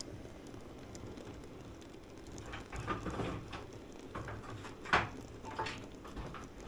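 N-scale model freight wagons rolling past on the track: a steady low rumble with irregular sharp clicks from the wheels on the rails, the loudest about five seconds in.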